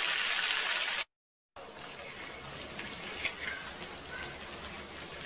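Bhaji and chopped coriander sizzling in hot butter on a flat tawa, loud for about the first second and then cut off abruptly. After a short break, a quieter sizzle with scattered scrapes and ticks as a spoon spreads and stirs the bhaji across the pan.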